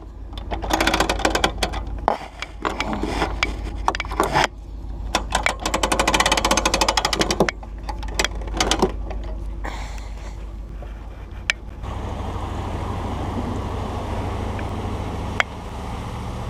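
Close rubbing, scraping and clicking of a body-worn camera against skin and clothing, with a fast run of even clicks partway through. After an abrupt change about 12 s in, a steady drone of a running vehicle, with a sharp click or two.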